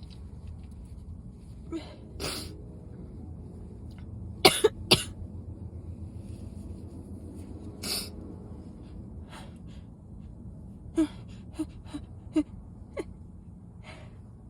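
A woman sneezing again and again in a sneezing fit: about a dozen short, sharp bursts. The loudest are a pair about half a second apart near the middle, with a quick run of smaller ones later.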